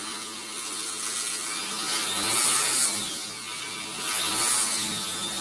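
Mahindra Scorpio's engine running, heard at the exhaust tailpipe with a raspy, buzzing note. It swells twice, about two and four and a half seconds in, as the engine is revved.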